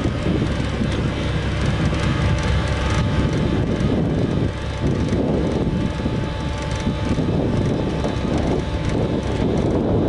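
AVR Puma 4.0 self-propelled potato harvester working under load: engine running and conveyor webs and elevator rattling steadily as potatoes are lifted and poured into a trailer alongside.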